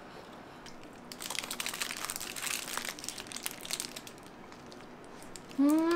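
Burger's paper wrapper crinkling as it is handled, for about three seconds. Near the end a person makes a loud hummed 'mmm' that rises and then falls in pitch.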